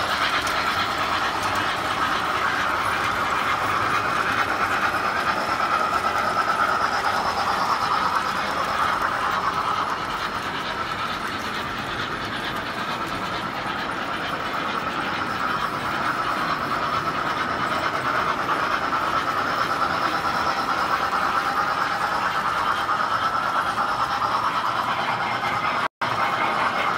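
Tinplate Standard Gauge toy trains running on three-rail metal track: a steady mechanical whir and clatter of electric motors and wheels on the rails. It eases for a few seconds midway, then builds again, and cuts out for an instant near the end.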